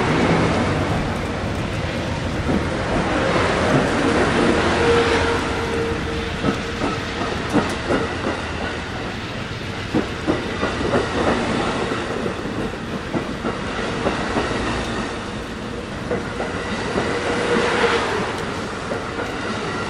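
Amtrak Superliner bilevel passenger cars rolling past at close range: a steady rumble with wheels clacking over rail joints, the clacks thickest in the middle stretch. A faint whining tone swells briefly about four seconds in and again near the end.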